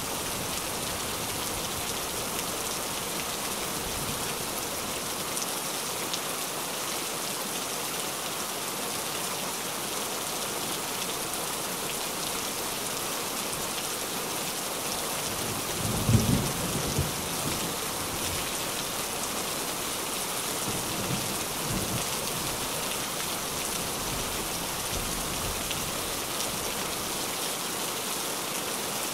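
Steady rain falling on a tin roof, an even hiss and patter. About halfway through there is a short low thump, followed by a few weaker ones.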